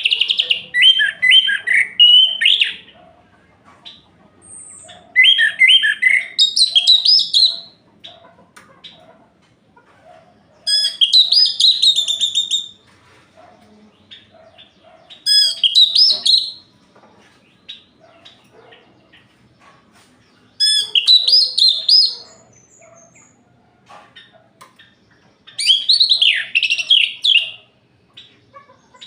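Orange-headed thrush singing: six loud phrases of quick, varied, warbling notes, each lasting about two seconds, with pauses of about three seconds between them.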